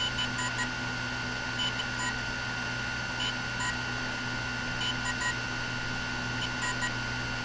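DJI Phantom 3 Professional sounding pairs of short electronic beeps, a pair about every second and a half: the tone it gives after power-on when it has found a firmware file on its micro SD card and the firmware update has started. A steady high whine and a low hum run underneath.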